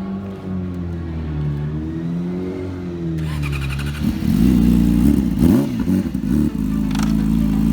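Yamaha YZF-R6's inline-four engine running, its pitch rising and falling slowly at first, then swinging up and down quickly several times near the middle before settling to a steady note.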